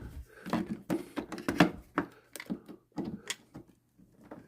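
Plastic charger plug and adapter being handled and pushed together: a run of irregular light clicks and knocks.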